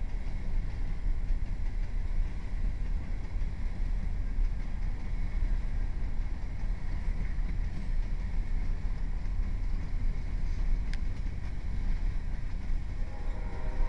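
Steady low rumble of a moving heavy vehicle. Near the end a horn starts sounding, a steady chord of several tones.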